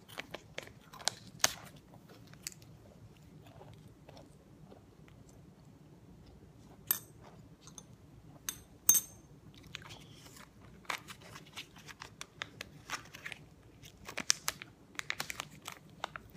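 A child chewing crunchy chocolate, with irregular crunches and small clicks, and a few sharper clicks about halfway through.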